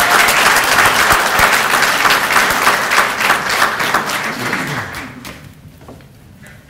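Audience applauding, loud at first and dying away about five seconds in.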